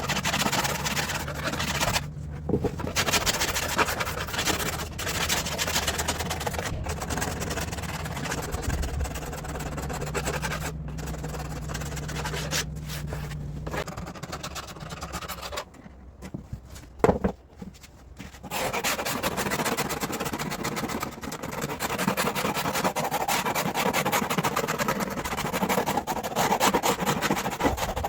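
Continuous rubbing and scraping from cutting and stripping a car seat back cover by hand with scissors and a blade, broken by a few abrupt dropouts, over a low steady hum for roughly the first half.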